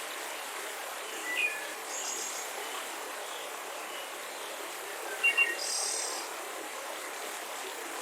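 Forest ambience: a few short bird chirps and calls over a steady background hiss, with a cluster of chirps and a brief high call around five to six seconds in.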